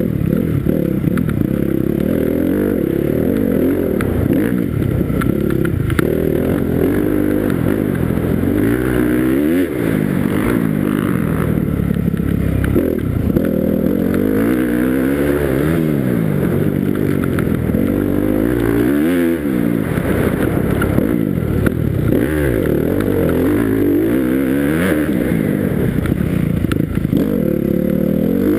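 Motocross dirt bike engine revving up and down over and over as the rider works the throttle and shifts, heard from a helmet-mounted camera. The pitch climbs and drops every second or few, with short dips where the throttle is cut.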